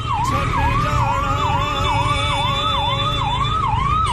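Electronic emergency siren in a fast yelp pattern: each rising whoop cuts off sharply and repeats about three times a second, over a low rumble.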